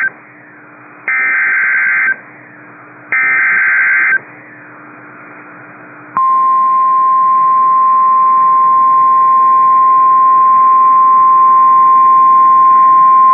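NOAA Weather Radio Emergency Alert System signal: two one-second bursts of SAME header data tones about a second apart, then, from about six seconds in, the steady single-pitch 1050 Hz warning alarm tone that precedes a warning message.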